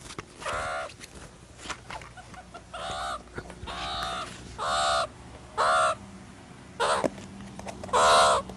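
Meerkat calls: about seven short pitched calls, each roughly half a second long, repeated at uneven intervals.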